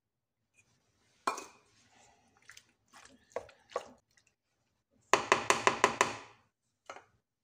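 Wooden spatula knocking and scraping against a metal baking pan as pasta is stirred and spread. Scattered knocks, then a quick run of about eight taps lasting about a second, the loudest part.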